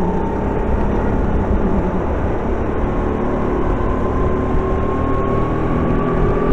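Kart engine running hard under load, its tone slowly rising in pitch as the kart gains speed, over a loud steady rushing noise.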